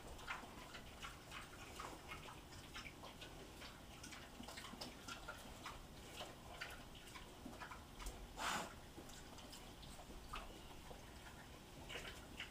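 Two pigs eating from bowls: a run of irregular chewing and smacking clicks, with one louder, short rush of noise about eight and a half seconds in.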